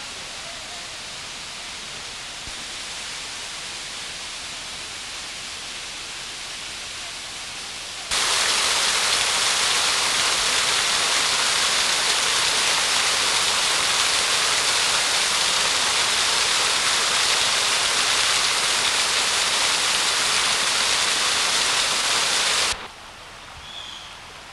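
A softer steady hiss, then about eight seconds in an abrupt switch to loud, steady rushing of water pouring down from a wooden flume, which cuts off suddenly near the end.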